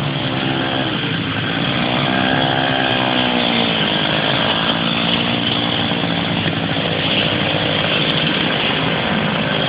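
Motorcycle with a sidecar riding past with its engine running, a buzzy note whose pitch rises and then falls about two to four seconds in.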